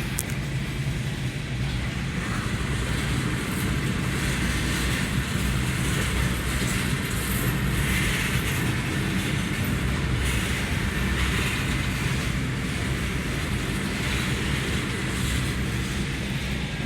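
Coal train's loaded freight cars rolling past, a steady rumble of wheels on rail with faint clicking from the rail joints.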